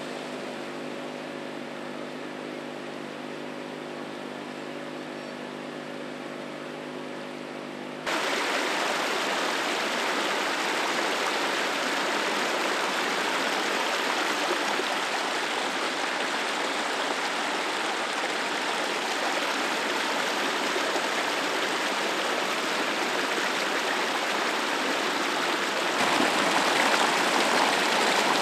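A steady mechanical hum for about eight seconds, then, after an abrupt change, liquid gushing and splashing steadily onto the ground: cooling water pouring out of the derailed locomotive. The gushing gets louder near the end.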